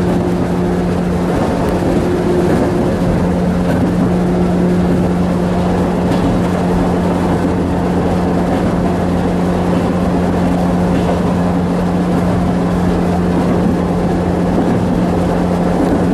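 Interior running noise of a JR West 105 series electric train at speed: a steady rumble of wheels on rail with a constant low hum.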